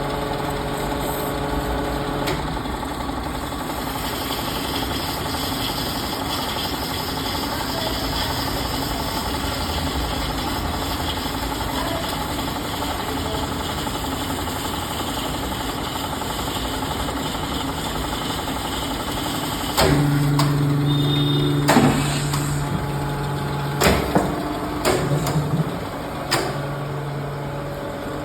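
Amada HA250 bandsaw running with a steady mechanical noise. About twenty seconds in, a louder low hum starts, along with several sharp clunks a second or two apart.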